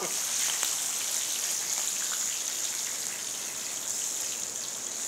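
Gopchang (beef intestines) sizzling steadily on a tabletop grill pan.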